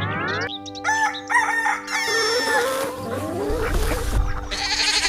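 A rooster crowing, with chicken clucks, over a music jingle of held chords.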